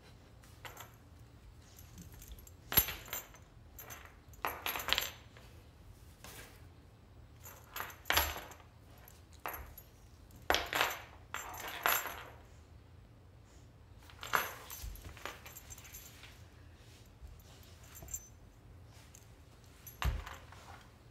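Metal chain-link dog collar clinking and jangling in irregular bursts as a Rottweiler moves its head against a wooden floor while working at a toy. The loudest clink comes about three seconds in.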